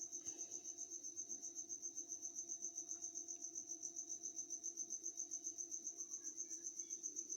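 A cricket chirping steadily, a high-pitched trill pulsing about eight times a second, over a faint low hum.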